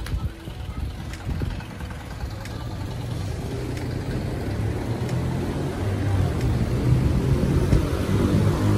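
A refrigerated light truck's engine idling: a steady low hum that grows steadily louder as it is approached.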